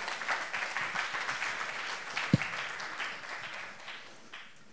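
Audience applauding, dying away near the end. One short, loud knock comes about two seconds in.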